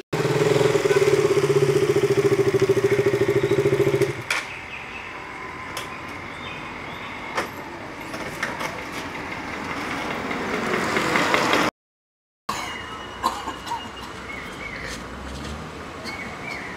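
A motorcycle engine runs loudly and steadily with a low pitched hum, then stops sharply about four seconds in. A quieter outdoor background follows and swells, is cut off by a brief drop to silence, and comes back with a few faint clicks.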